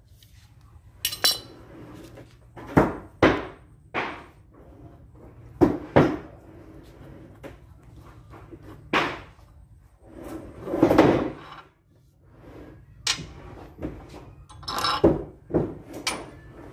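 Irregular metal clinks and knocks of a spanner and loose cutter parts as the cutter is unbolted from the spindle of a homemade woodworking machine, with the machine switched off. About a dozen separate knocks, one of them a longer clatter lasting about a second near the middle.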